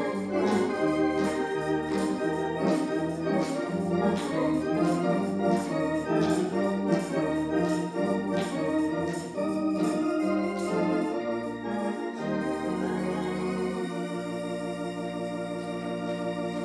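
Organ music: a run of chords and moving notes, settling into one long held chord for the last few seconds.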